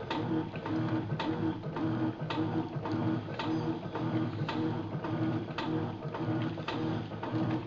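Electrolux top-load washing machine agitating: the motor hums in short, even strokes, with a sharp click about once a second.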